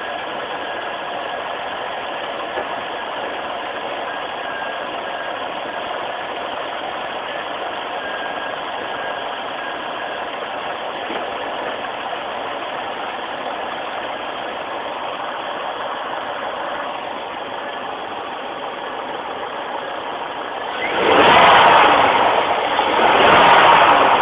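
Corvette C5's V8 engine idling steadily under the open hood. A louder noise swells for about three seconds near the end.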